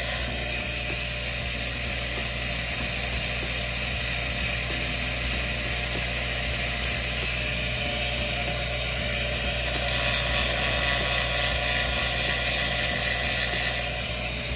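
Flux-cored arc welding on steel pipe: the arc crackles steadily, gets louder for a few seconds near the end, then eases off just before the end.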